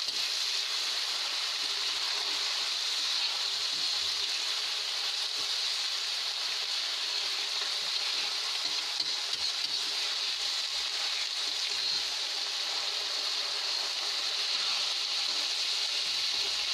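Rice sizzling in hot oil in a kadhai as it is stir-fried with cumin and cloves: a steady, even hiss.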